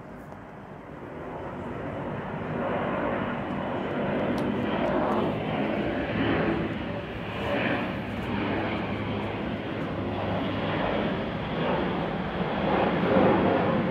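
Airbus A400M's four turboprop engines and propellers passing low overhead on the landing approach. A steady drone that grows louder over the first few seconds and stays loud.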